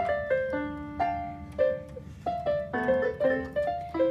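Portable electronic keyboard playing a melody in a piano voice: single notes struck one after another, with a few notes sounding together as chords past the middle.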